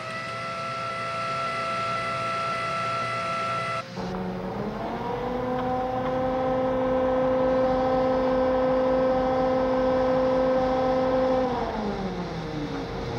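A steady machine whine that cuts off about four seconds in. A second whine then winds up in pitch, holds steady, and winds down again near the end.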